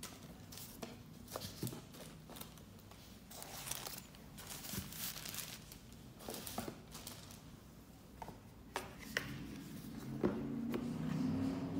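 Paper sheets rustling and crinkling as a stack of paintings in thin interleaving paper is handled and set into a cardboard box, with small scattered taps.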